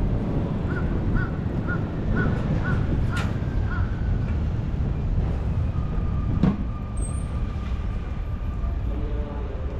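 A crow cawing about seven times in quick succession, about two calls a second, over a steady low rumble. A single sharp knock comes a little past halfway.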